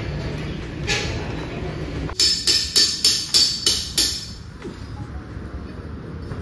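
A quick run of about seven sharp, ringing strikes, roughly four a second, starting about two seconds in; a low rumble stops just as they begin.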